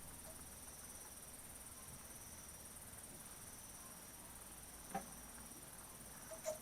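Faint steady chirring of night insects, typical of crickets, with two short clicks or light knocks about five and six and a half seconds in.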